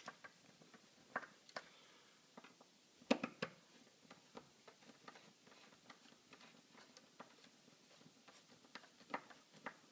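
Faint, irregular clicks and ticks of a hand-turned Phillips screwdriver driving the mounting screws of an electrical outlet into its wall box, with a sharper pair of clicks about three seconds in.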